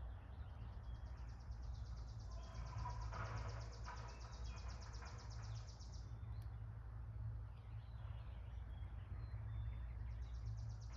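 A small songbird's high, rapid trill, lasting about five seconds and starting again near the end, with fainter lower calls in between, over a steady low rumble of wind or handling noise.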